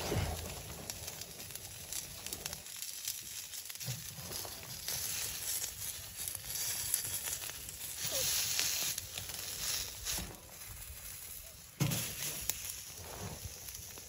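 Handling noise as raw chicken wings are arranged in a hinged wire grill basket on a wood stove: rustling, small clicks of the wire, and a sharp knock near the end as the basket is closed.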